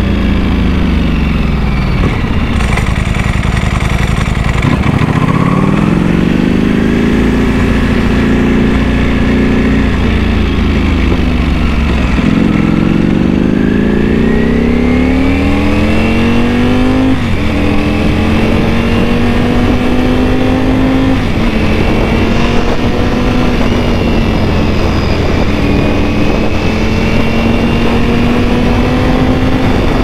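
Ducati Panigale V4S's V4 engine, fitted with a dry clutch, heard from the rider's seat on the move. The revs fall away at first, climb, dip again, then pull hard. From about halfway the bike goes up through the gears, the pitch dropping sharply with each upshift a few seconds apart.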